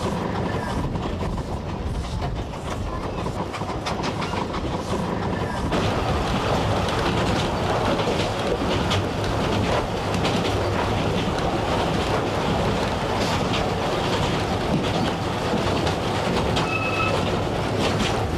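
Train running on rails: a steady rumble with rapid clicking of the wheels over the track, growing louder about six seconds in. A brief high tone sounds near the end.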